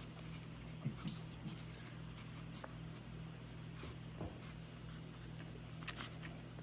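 A pug puppy digging and pawing at a fleece blanket: faint, irregular scratching and rustling, with a steady low hum underneath.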